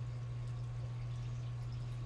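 A steady low hum over faint room noise, unchanging throughout.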